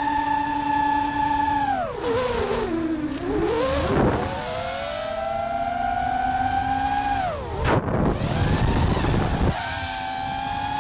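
DJI FPV drone's motors and propellers whining, heard through the drone's own microphone. The pitch drops sharply about two seconds in as the throttle comes off, then climbs back. It drops again near eight seconds with a rush of wind and rises to a steady whine near the end: the throttle changes of freestyle flying.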